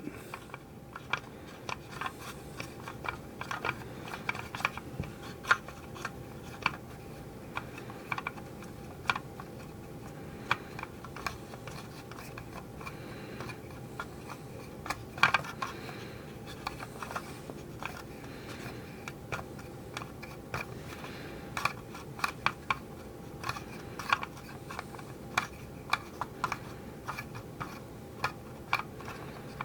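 Irregular small clicks, taps and scratches of fingers and a tool working epoxy putty around a hard plastic toy wheel, over a steady faint background hiss.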